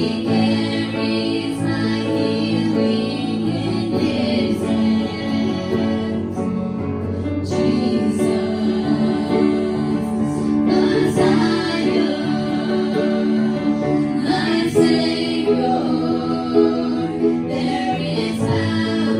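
A woman and two girls singing a gospel song together into microphones, over steady instrumental backing.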